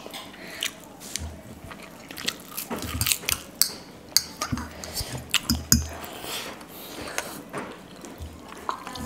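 Close-up eating sounds: crunchy bites and chewing of noodles and a crisp fried snack, with chopsticks and spoons clicking against ceramic bowls and a few soft low thumps.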